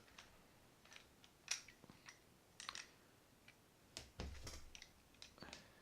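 Faint, scattered clicks and light knocks from a Penn 260 Slammer spinning reel being handled as its handle is unscrewed, with a duller knock about four seconds in.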